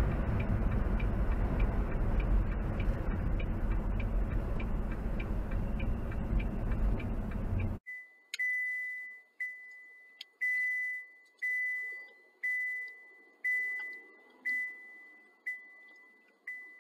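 Road and engine noise inside a semi truck's cab for about eight seconds, with a faint tick about twice a second. It cuts off suddenly, and then a car's electronic chime beeps about once a second at one high pitch, each beep fading quickly.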